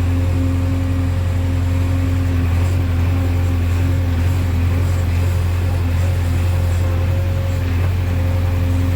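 JCB backhoe loader's diesel engine running at a steady speed, a constant low drone.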